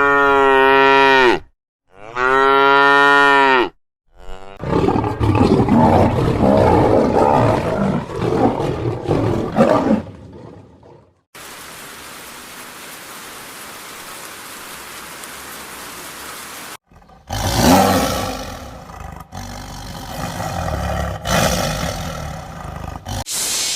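A cow mooing twice in two long calls. These are followed by several seconds of rough, noisy animal sound, a steady hiss, and then more noisy calls.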